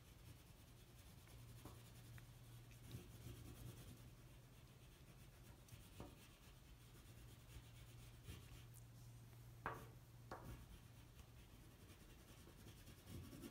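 Faint scratching of an oil pastel stick rubbed across paper as a background is coloured in, with a few soft taps, over a low steady hum.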